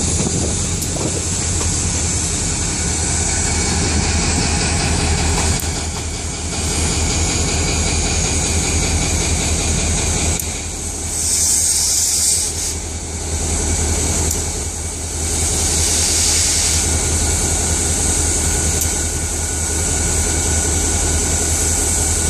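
Freight train in motion: empty grain hopper cars rolling on steel rails with wheel clatter, over the steady low drone of diesel-electric freight locomotives (EMD SD40-series and a GE Dash 9). A brief high hiss stands out near the middle.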